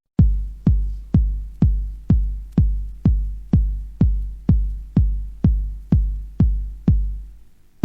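Drum-machine kick drum of a 1990s techno track playing on its own in a steady four-on-the-floor beat, about two hits a second. Each hit is a deep bass thud with a sharp click on top. The rest of the track drops back in right at the end.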